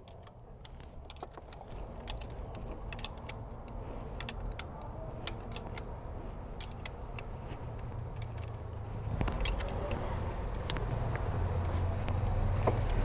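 Small metallic clicks and clinks of hand tools working the timing-belt tensioner on a Peugeot EW10A engine as the new belt is tensioned and the tensioner locked, over a low rumble that grows louder toward the end.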